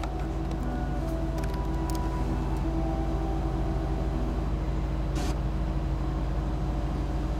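Car engine idling with a steady low rumble, with faint music of long held notes playing over it.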